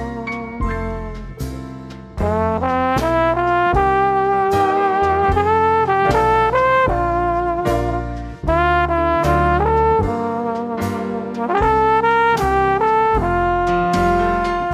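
Outro music: a brass-led tune over a heavy bass beat with sharp drum hits, starting to fade out near the end.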